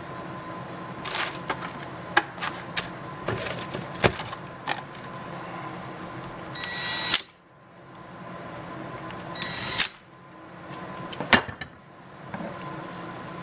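Metal clinks and taps of engine parts being handled, then a cordless drill whirring in two short bursts, about seven and nine and a half seconds in, running down connecting-rod cap nuts on a Subaru 2.5L crankshaft.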